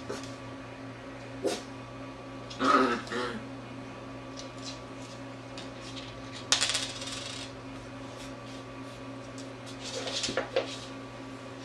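Short, sharp clicks and clatters from a golden retriever and a beagle puppy playing on a hardwood floor. The loudest clatter comes about three seconds in, and a sharp one about six and a half seconds in is followed by a second of rustling. A few more clicks come near the end.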